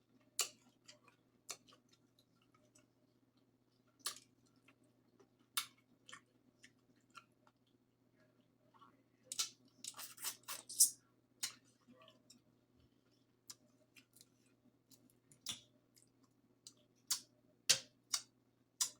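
Close-miked mouth sounds of someone eating shrimp in butter sauce: irregular wet smacks and clicks of chewing and lips, with a busy run about nine to eleven seconds in and again near the end, over a faint steady low hum.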